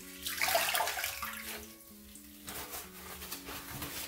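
Water splashing and dripping as a wet sponge is squeezed and wrung out over a sink basin of cloudy cleaning water, loudest in the first second and a half. Soft background music of held notes underneath.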